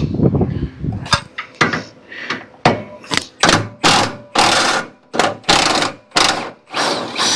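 Cordless impact wrench fired in a string of short trigger bursts, about two a second, hammering at a rusted Jeep CJ7 grille bolt to break it loose.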